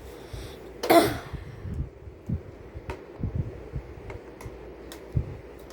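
Screwdriver and handling clicks and knocks on the back of a vintage box fan as its tight screws are worked loose, with one short loud burst of noise about a second in.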